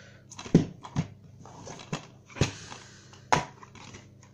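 Plastic DVD cases being handled: a handful of sharp, irregular clacks and knocks as a case is turned over and moved in the hand, the loudest about half a second in and near the end.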